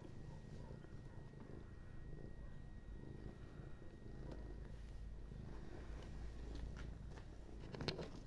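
A cat purring steadily in a low, faintly pulsing rumble while it is stroked, with one short sharp noise near the end.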